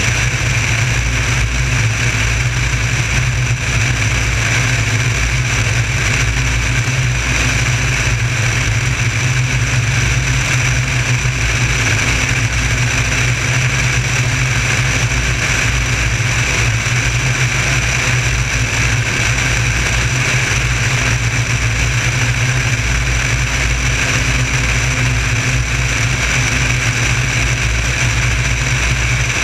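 Piper Saratoga's six-cylinder piston engine and propeller running at a steady, unchanging drone as the plane climbs out after takeoff, heard from a camera mounted outside on the airframe.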